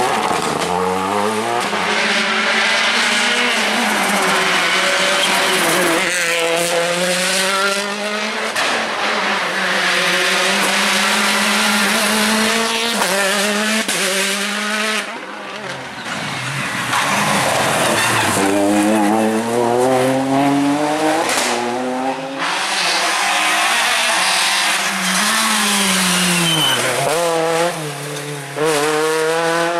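Rally cars at full attack, one after another: engines revving hard, pitch climbing and dropping sharply through gear changes and braking, with tyres squealing.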